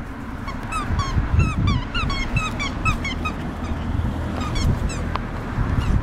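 Rubber squeaky dog toy squeaking in a quick run of short squeaks, about three a second. The squeaks pause, then come twice more near the end. A low rumbling noise runs underneath.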